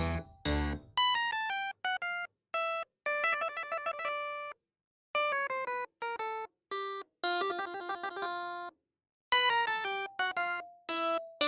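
Background music: a light melody of short pitched notes in brief phrases separated by moments of silence, with quick trilling runs of notes.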